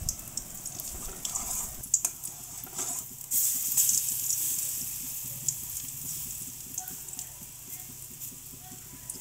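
Besan fritters sizzling in hot oil in a kadai, with a metal spatula scraping and clicking against the pan as they are turned, mostly in the first few seconds.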